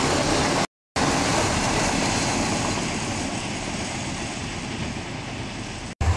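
Freight train of autorack cars rolling past on the rails, a steady rumble of wheels that fades slowly as the train draws away. The sound drops out for a moment near the start and cuts off abruptly near the end.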